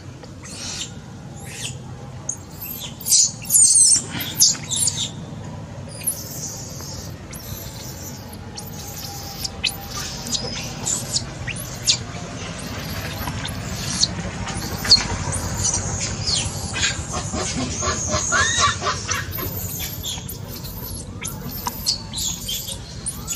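Many short, high-pitched chirping and squealing animal calls, one after another, loudest a few seconds in, over a low steady background noise.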